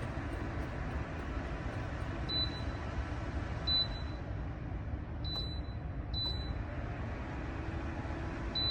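Lasko Ellipse ceramic tower heater's fan blowing steadily, with five short high beeps from its control panel, the sound of settings being changed with its buttons or remote.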